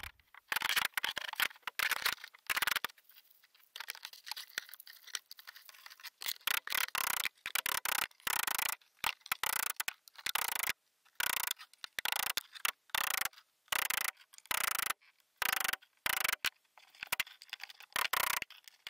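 Hammer driving nails into a wooden cabin floor: an irregular run of short knocks and scrapes that cut in and out.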